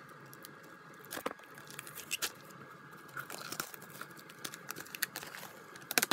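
Paper and cardboard rustling and crinkling as a CD album package is handled and its booklet slid out, with scattered sharp clicks and taps, the loudest a quick cluster near the end.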